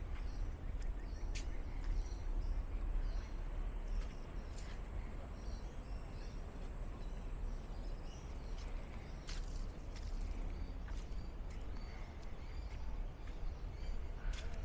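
Outdoor garden ambience: a steady low rumble with faint bird chirps repeating throughout and a few light clicks.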